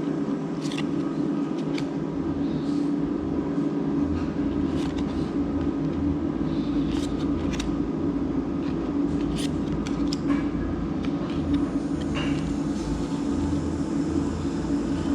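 Trading cards being handled and sorted, with scattered light clicks and rustles of card stock, over a steady background hum.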